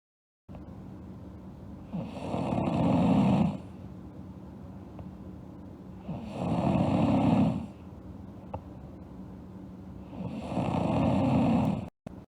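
A sleeping girl snoring: three long, rough snores about four seconds apart, each lasting about a second and a half, over a steady quieter background noise.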